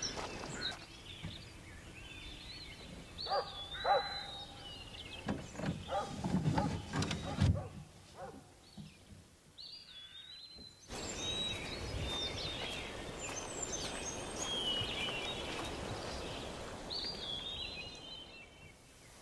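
Woodland birds singing in short repeated chirping phrases, with a few knocks and thuds in the middle. A steady rushing noise comes in suddenly about eleven seconds in.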